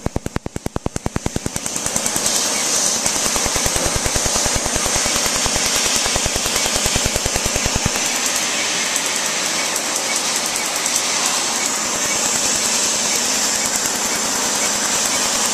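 Q-switched laser tattoo-removal handpiece firing a rapid, even train of snapping pulses into the skin, which stop about eight seconds in. A steady hiss of air from the skin-cooling hose comes in about two seconds in and carries on after the pulses stop.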